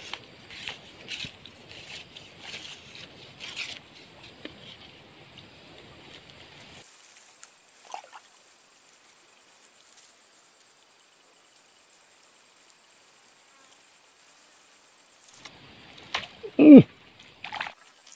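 Insects trilling steadily on one high pitch. Rustling and small clicks run over the first seven seconds or so, and a short, loud sound comes about a second and a half before the end.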